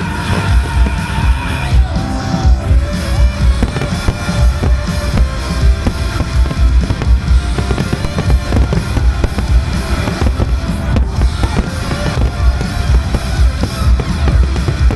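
A fireworks display: aerial shells bursting in a rapid, continuous run of low booms and crackles, over loud accompanying music.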